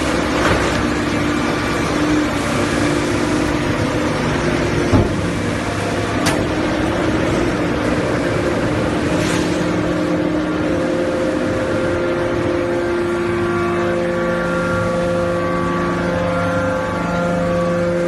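Hydraulic power unit of a Dalongkai Y81K-400 scrap metal baler running: the electric motor and hydraulic pump give a steady hum with several held tones that shift partway through. A few sharp metallic knocks come through, the loudest about five seconds in.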